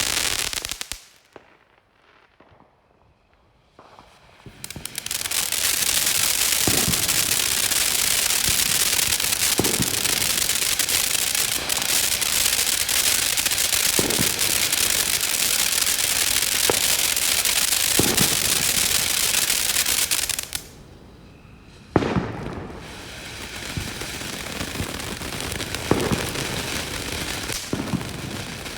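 TNT Justice 500-gram firework fountain spraying sparks with a loud, steady hiss. The hiss is broken by a near-quiet lull about a second in and a shorter dip about two-thirds of the way through. Sharp pops come every few seconds, and a sharp bang after the second lull is followed by quieter hissing and scattered pops.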